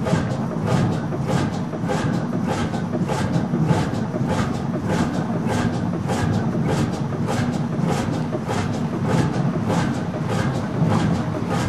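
Hundested 45 HP single-cylinder two-stroke hot bulb (semidiesel) marine engine running steadily, its exhaust beating at an even pace of about three beats a second.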